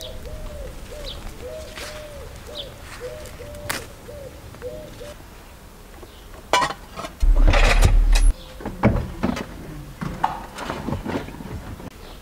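A bird calls in a repeated series of short low notes. About seven seconds in there is a loud rumbling burst lasting about a second, followed by scattered knocks and clatter.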